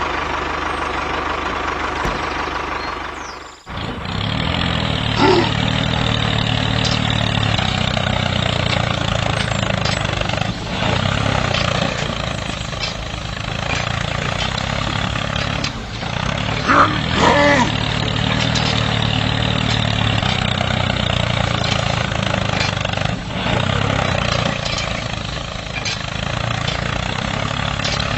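Motor of a DIY mini tractor running steadily. It drops out briefly about three and a half seconds in, then runs on. A few short high-pitched sounds break through about seventeen seconds in.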